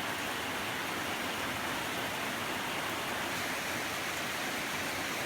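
A steady, even rushing hiss with no breaks or changes, strongest in the upper range.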